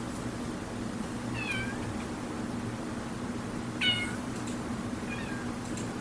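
Cats meowing: three short meows, each falling in pitch, about a second and a half in, near four seconds (the loudest) and about five seconds in, over a steady low hum.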